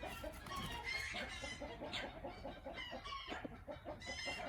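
Chickens clucking and calling faintly, many birds at once, with short scattered calls throughout.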